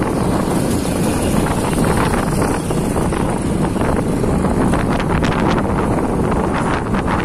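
Loud, steady wind buffeting the microphone on a moving vehicle, with engine and road noise underneath.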